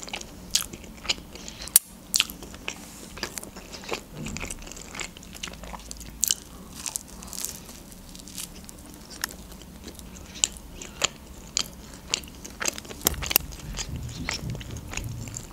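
Close-miked biting and chewing of a tombik, a doner kebab in a toasted bread roll, with irregular crisp crunches from the bread.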